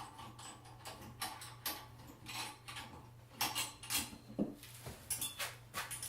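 Irregular metal clinks and rattles from the lamp guards, nuts and fittings of a sauna lamp base being handled and tightened by hand.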